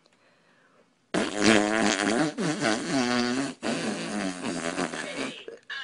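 A long, drawn-out fart noise starts about a second in and lasts about four seconds. It wavers in pitch and breaks off briefly twice.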